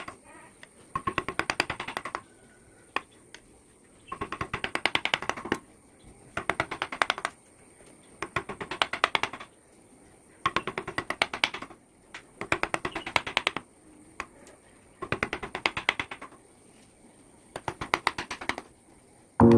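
Carving chisel on teak, tapped with a mallet in quick runs of many sharp strikes, each run lasting about a second and repeating every two seconds or so, with a few single taps between runs.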